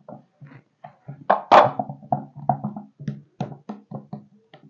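Music of short plucked notes, guitar-like, picked several times a second, with one louder, noisier burst about a second and a half in.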